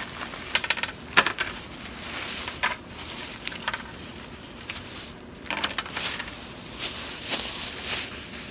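Thin plastic shopping bag rustling and crinkling as hands rummage through it, with a few sharp clicks of metal pipe fittings knocking together.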